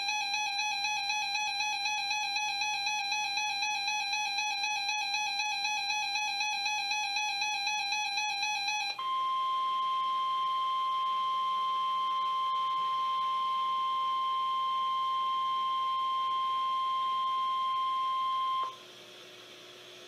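Weather alert radios sounding their warbling electronic alert siren for about nine seconds, then the single steady 1050 Hz NOAA Weather Radio warning tone for about ten seconds, signalling an incoming warning broadcast. The tone cuts off near the end, leaving a faint low hum.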